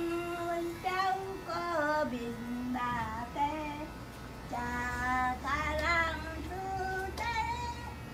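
An elderly woman singing an old folk song solo, one voice holding long notes that slide between pitches.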